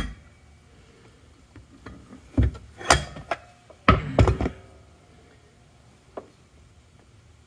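A few sharp knocks and clunks of metal transmission parts being handled, as the direct clutch drum comes out of a TH350 case and the parts inside are worked on. They are bunched about two to four seconds in, with one faint tick later.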